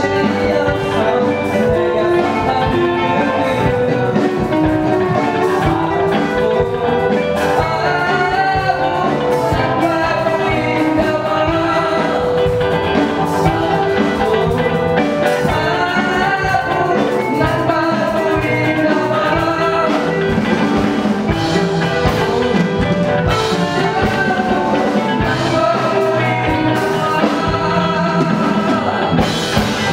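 Rock band playing with electric guitar, keyboard and drum kit, and a singer's vocal over them.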